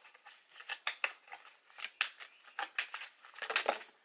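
A deck of tarot cards being shuffled by hand: a run of soft card flicks and slaps, about four a second, coming closer together near the end.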